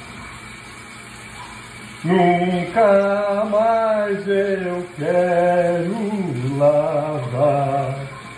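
A man singing in long, drawn-out notes that slide up and down, starting about two seconds in, while water runs steadily from a kitchen tap.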